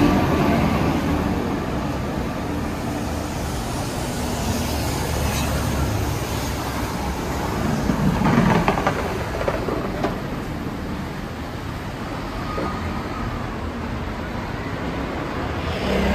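Street traffic noise: a steady rumble of passing road vehicles, swelling louder about halfway through as a vehicle goes by close.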